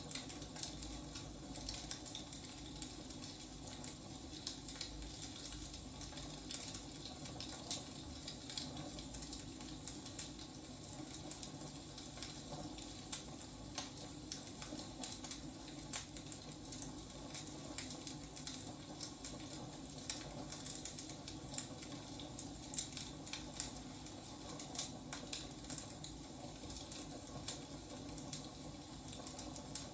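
Wood fire burning, with many small irregular crackles and pops over a soft steady rush.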